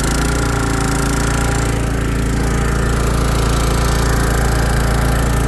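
Kohler 18 hp engine of a Hustler FasTrak zero-turn mower running steadily at high throttle after being revved up from idle. It runs smoothly, with no bad vibrations.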